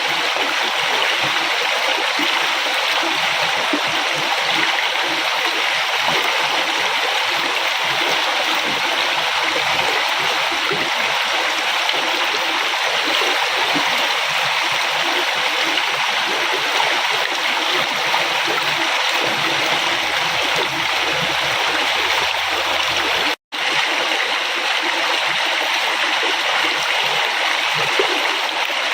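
River water flowing steadily, an even continuous wash of water noise, broken once by a split-second dropout about two-thirds of the way through.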